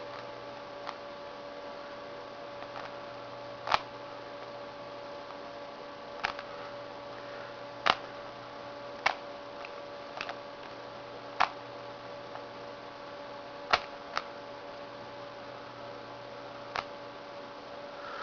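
Rubik's Cube being turned by hand: about nine separate sharp clicks of face turns, irregularly spaced a second or more apart, over a steady electrical hum.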